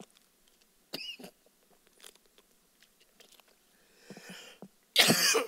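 Small crackles and clicks of a plastic water bottle as a man opens its cap, then a short loud cough near the end.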